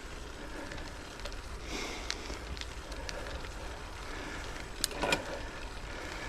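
Gravel bike rolling along on Goodyear Connector gravel tyres: steady tyre and wind noise with low rumble on the microphone. There are a few small clicks and two sharper knocks about five seconds in.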